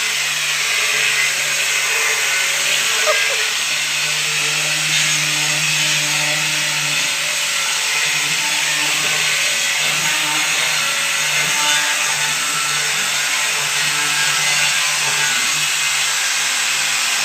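A woodworking power tool running steadily without a break: a low hum under a continuous hiss.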